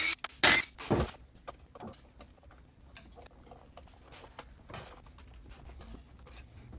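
A few sharp metallic clicks in the first second, then faint scattered taps and scrapes of a screwdriver levering at the drive flange of a Land Rover Series III rear hub. The half shaft is binding instead of sliding out, probably broken at the differential splines.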